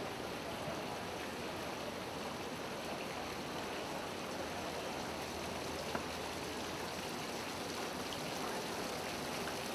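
Steady, even hubbub of a busy exhibition hall, with no clear voices standing out and one brief click about six seconds in.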